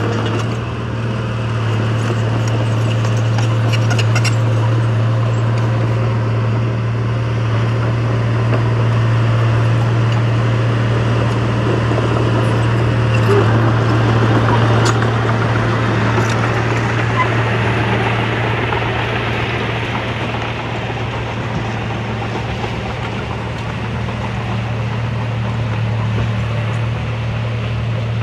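Diesel engine of heavy earth-moving equipment running steadily under a continuous low hum, with a few brief clicks or clanks.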